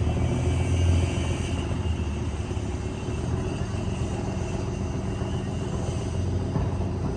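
A boat engine running with a steady low drone, a little quieter after the first second.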